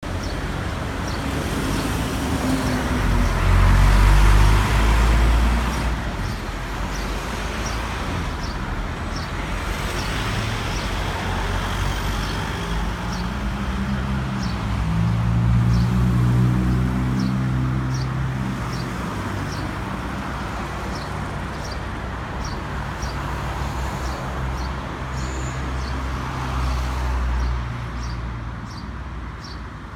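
A motor vehicle's engine running as it drives, its pitch rising as it speeds up partway through, with a steady light ticking a little faster than once a second.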